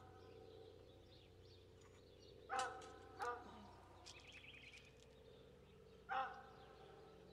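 A dog barking in the distance: three short barks, two close together about two and a half seconds in and one more near the end. A bird chirps briefly between them.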